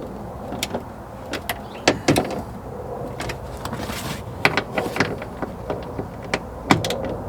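Irregular metallic clicks, taps and short scrapes of nuts and hand tools as a window regulator is fastened back inside a car's rear door.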